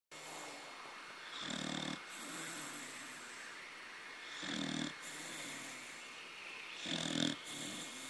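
A corgi snoring in its sleep: three rattling snores about two and a half seconds apart, each with a faint high whistle, and softer breaths out between them. The last snore is the loudest.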